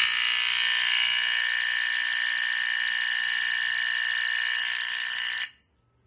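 BRK 769AC-I ionization smoke alarm sounding its loud, high-pitched horn continuously during a test, showing that it works. The horn cuts off suddenly about five and a half seconds in.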